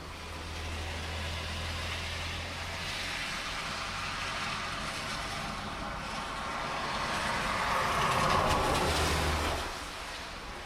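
Vehicles passing on a wet road in the rain: tyre hiss on wet tarmac and a low engine hum swell and fade. The loudest pass builds to a peak near the end and drops away about a second before the end, with steady rain underneath.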